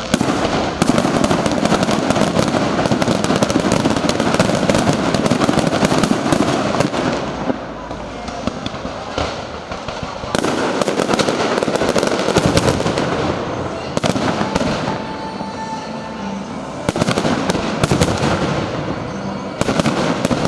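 Aerial fireworks display: rapid volleys of shell bursts and crackle, a dense barrage through the first several seconds, easing off, then a fresh barrage about halfway and more bursts near the end.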